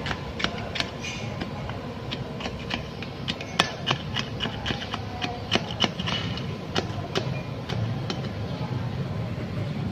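Irregular sharp metallic taps, about two a second, as a steel rod is worked down into the valve bores of a Multicab cylinder head, over a steady low rumble.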